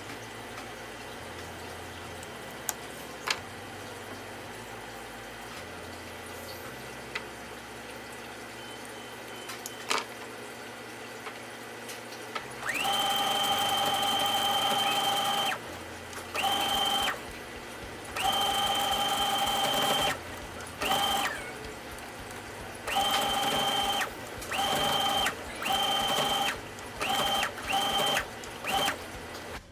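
Electric sewing machine stitching hair wefts onto a wig cap. It runs in stop-start bursts: the first long run starts about halfway through, then shorter and shorter runs follow. Before that there are only a few light clicks of handling.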